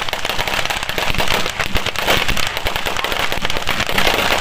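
Firecrackers and ground fireworks going off in a rapid, unbroken crackle of bangs and pops.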